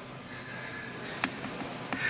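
Quiet room tone broken by two short, sharp clicks, one a little over a second in and one near the end.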